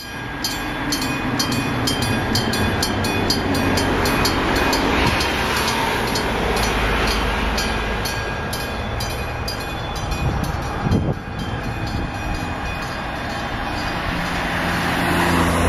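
Electric-bell level-crossing warning ringing in rapid, even strokes, several a second, over the steady sound of a railway scene with a train at the station. There is a single thud about eleven seconds in, and a low, steady sound swells near the end.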